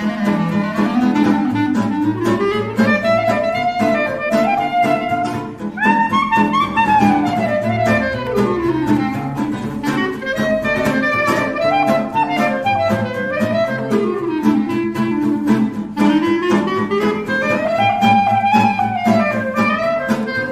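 Instrumental background music: a melody that rises and falls over a steady bass line.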